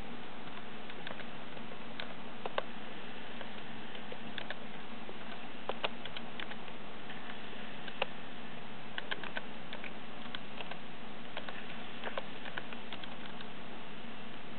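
Steady hiss with a faint low hum, broken by scattered soft clicks at irregular times.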